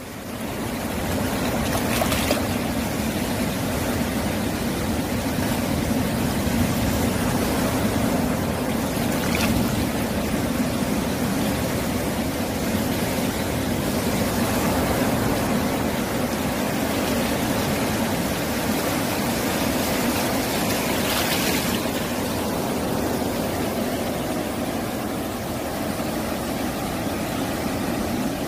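Sea waves washing in over a rocky shore, water rushing and trickling between the stones in a steady rush, with a few brief louder surges.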